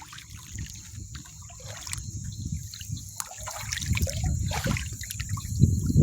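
Shallow water sloshing and trickling, stirred by someone moving through it, growing louder near the end. A steady high tone sounds behind it.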